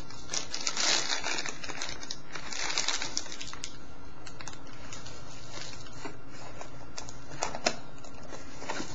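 Crinkling of plastic bag and bubble-wrap packaging being handled, dense for the first three seconds or so, then quieter handling of the cardboard box with a few sharp clicks, the sharpest near the end.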